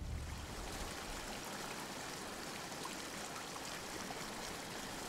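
The Duerna River flowing, a steady even sound of running water.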